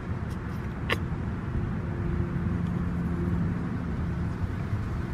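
Low, steady rumble of a vehicle running nearby, with a faint hum that comes up for a couple of seconds in the middle, and one short click about a second in.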